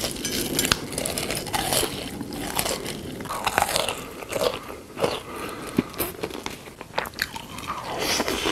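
Crunchy biting and chewing of food close to the microphone, with many sharp crunches in quick succession.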